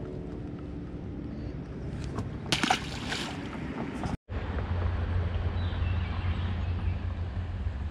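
Wind buffeting the microphone outdoors: a steady low rumble with a light hiss, which grows stronger after a cut about four seconds in. A brief, louder burst of noise comes about two and a half seconds in.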